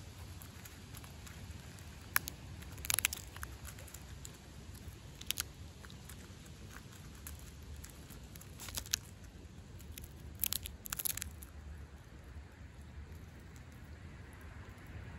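Striped skunk crunching and chewing peanuts from a plate, in scattered sharp crunches, with a cluster about three seconds in and another burst around ten to eleven seconds.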